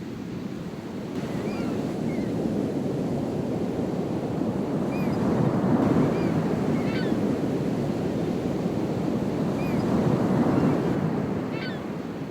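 Ocean surf breaking, a steady wash that swells twice as waves come in, with a few short high chirps over it.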